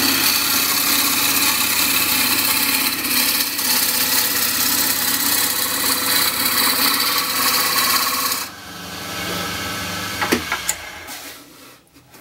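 Roughing gouge shearing a spinning spindle blank on a wood lathe: a steady hiss of the cut over the lathe's running, even all the way round because the blank has become round. About eight and a half seconds in the cut stops, leaving the quieter lathe running; then a click, and the sound dies away near the end.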